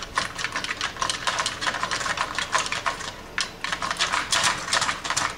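Rapid, irregular clicking and crackling of the game camera's hard plastic parts as they are worked and snapped loose by hand, with a brief lull about three and a half seconds in.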